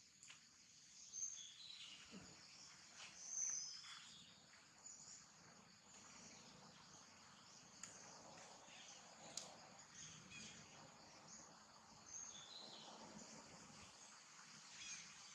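Faint outdoor insect drone, steady and high-pitched, with scattered short high chirps and a few light clicks.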